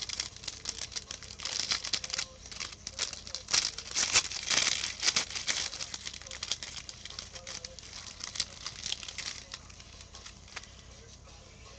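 Gold foil wrapper of a Panini Gold Standard basketball card pack crinkling as it is torn open by hand: a dense run of sharp crackles, busiest a few seconds in, thinning out near the end.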